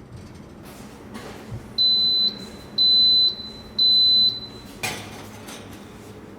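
Electronic beeper of a Hauswirt i7 countertop convection oven sounding three high beeps, each about half a second long and a second apart. A single clunk follows near the end.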